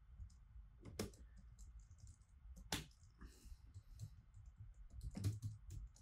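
Faint, irregular keystrokes on a computer keyboard, with a few sharper clicks about a second in, just before three seconds and around five seconds.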